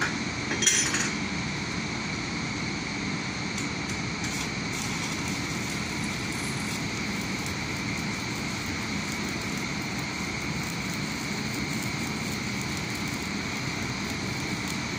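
Electric welding arc on a steel overhead crane rail, crackling and hissing steadily; a single metal knock comes just under a second in, before the steady arc sound.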